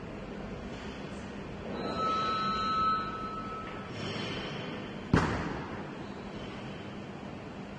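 Sports-hall background murmur, swelling briefly about two seconds in with a short whistle-like tone, then a single sharp thud about five seconds in that rings on in the large hall.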